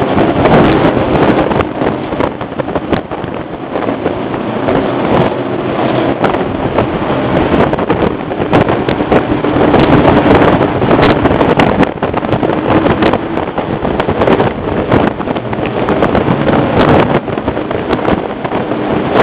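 Vintage NASCAR race car engine running loud at low speed, with sharp crackles and pops throughout and wind buffeting the microphone.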